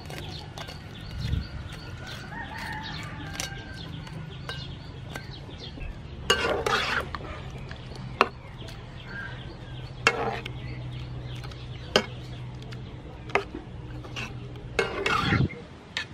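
Clam meat tipped into a pan of boiling water, then stirred with a metal spatula: splashing in the broth, knocks of the spatula against the pan, and a steady low rumble underneath. Chickens cluck in the background.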